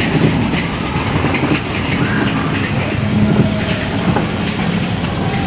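Indoor roller coaster train running along its track, with a steady rattle and many quick clacks of the wheels on the rails.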